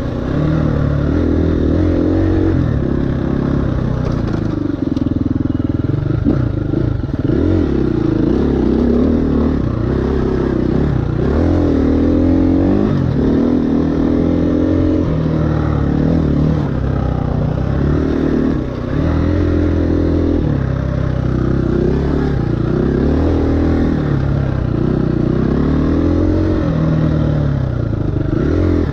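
A KTM 350 EXC-F's single-cylinder four-stroke engine, ridden hard, its revs climbing under throttle and dropping off again over and over.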